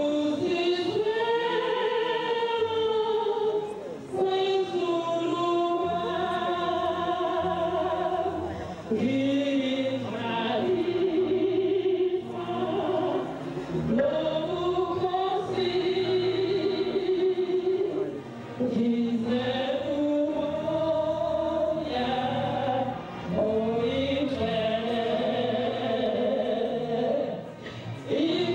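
Church choir singing a slow hymn: long held notes in phrases a few seconds long, with brief breaks between them.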